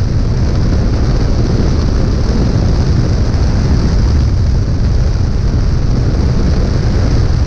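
Loud steady rush of slipstream wind over the microphone of a camera mounted under a Cessna 172's fuselage in flight: a deep buffeting rumble with a hiss on top, and no engine tone standing out from it.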